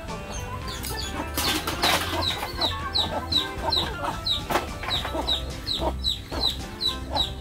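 Chickens clucking, with a run of short, high, falling calls repeated about three times a second, over background music.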